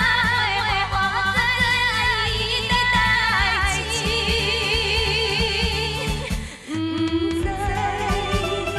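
Asian pop song: a woman singing a melody with vibrato over band accompaniment. The music dips briefly about two-thirds of the way through, then continues.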